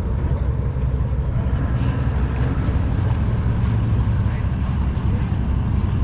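Boat motor running steadily at low speed, a constant low rumble, with wind buffeting the microphone.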